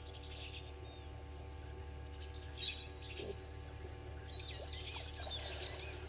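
Wild birds calling in the bush: scattered short chirps and whistles, a louder call with a held high note near the middle, then a run of quick warbling notes near the end, over a steady low hum.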